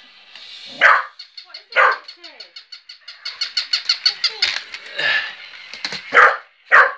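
Cocker spaniel barking at a battery-powered toy puppy: two sharp barks about a second apart near the start and two more near the end. Between them comes a fast run of high-pitched pulses, about seven a second.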